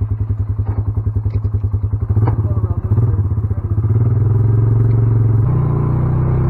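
Four-wheeler (ATV) engine running with an even putter, then revving up and pulling away, louder and steadier from about two seconds in. Its note steps up about five and a half seconds in as it picks up speed.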